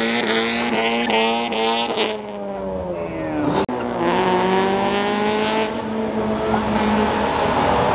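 Car engines running hard and revving as cars pull away along the street, with some tyre squeal in the first couple of seconds. The sound breaks off abruptly a little before halfway and picks up again with another engine note.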